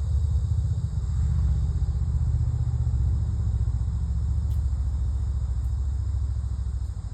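Steady low rumble with a fast flutter, easing off slightly near the end.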